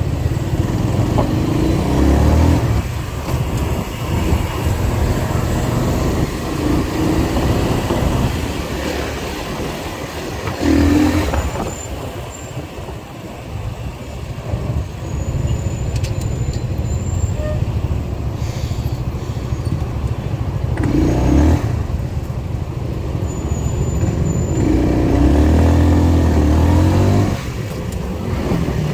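A motorcycle ridden through dense city traffic: its engine running under the continuous noise of surrounding cars and motorbikes, swelling louder several times as it pulls away or vehicles pass close.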